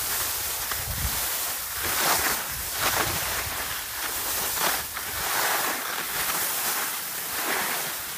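Skis scraping over icy, hard-packed snow, a rushing hiss that swells and fades with each turn, with wind rumbling on the microphone.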